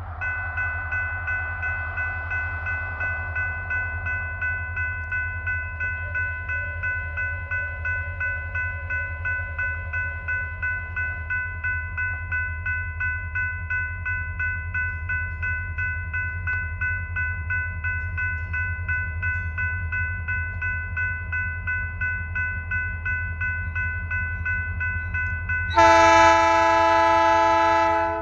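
Railroad grade-crossing bell ringing steadily, about two strokes a second, over the low rumble of Norfolk Southern diesel locomotives approaching. Near the end, a locomotive air horn sounds once for about two seconds and is the loudest sound.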